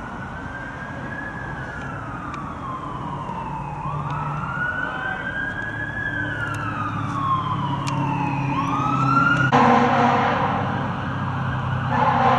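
Emergency vehicle siren wailing in slow rises and falls, growing louder as it approaches. A loud horn blast cuts in about two-thirds of the way through, and another starts near the end.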